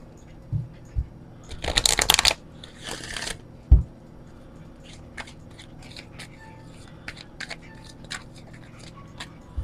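A deck of oracle cards shuffled by hand. There is a quick flurry of cards flicking together about two seconds in, a few dull thumps, then scattered light clicks as the cards are handled.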